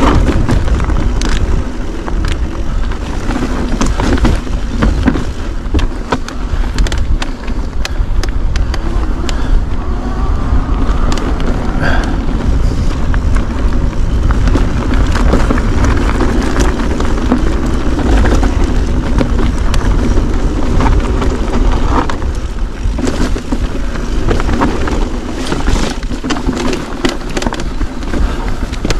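Mountain bike riding a rocky single-track trail: tyres rolling over loose stone, with frequent sharp knocks and rattles from the bike, under a heavy rumble of wind on the microphone.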